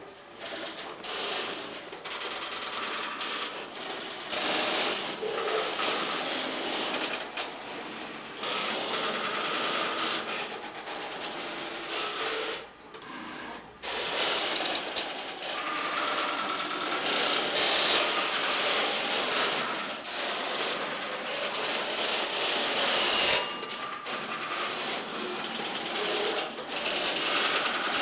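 Electromechanical switching gear of a Tesla P51 telephone exchange clattering: many relays and selectors clicking and chattering rapidly and continuously, swelling and easing, with a short lull about halfway through. A few short steady tones sound through the clatter.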